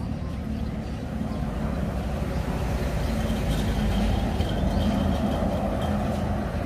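Road traffic: a heavy truck's engine rumbling as it passes, swelling through the middle, with a faint high whine partway through.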